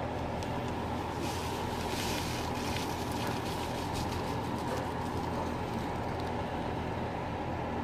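Dry seasoning poured from a paper packet into a saucepan of melted butter, a hissing rustle from about one to three seconds in, over a steady low hum.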